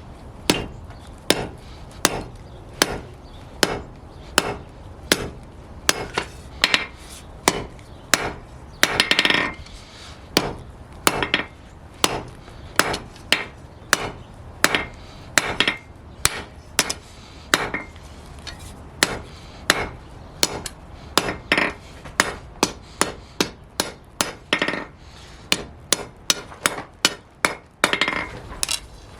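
Blacksmith's hammer forging a steel flat bar on an anvil: a long run of steady blows, about one to two a second and quicker near the end, each with a short metallic ring.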